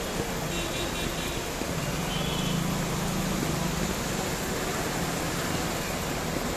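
Heavy rain pouring steadily onto a wet street, an even hiss. A motor scooter passes by on the wet road from about two to four seconds in.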